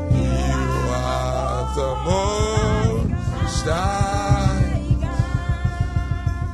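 Live gospel worship music: a singer over sustained low instrumental notes, with a fast steady beat coming in about two seconds in.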